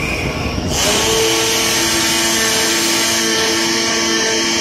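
CNC flatbed cutting plotter running on corrugated cardboard. Under a second in, a loud steady hiss starts under a low hum, while motor whines switch on and off in quick steps as the cutting head moves.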